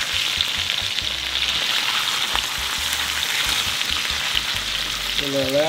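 Sesame-crusted tuna steaks searing in hot olive oil in a frying pan: a steady sizzle with sesame seeds popping and crackling in the oil.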